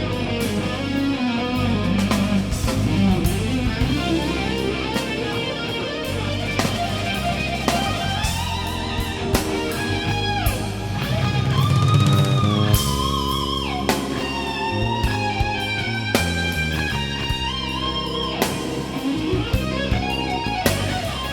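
Background rock music: electric guitar with bends and slides over bass and a drum kit.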